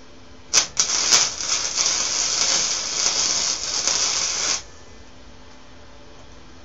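Electric welding arc: a few short crackling starts about half a second in, then a steady crackle as a weld bead is laid for about three and a half seconds, cutting off abruptly.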